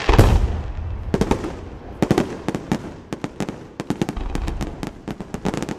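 Aerial fireworks display: a heavy shell burst with a deep boom just after the start, then from about two seconds in a rapid, irregular string of sharp cracks like crackling firecrackers.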